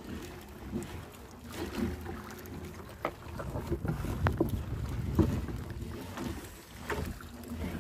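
A small fishing boat rocking on a choppy sea: water against the hull and wind on the microphone, with a few sharp knocks about three, four, five and seven seconds in.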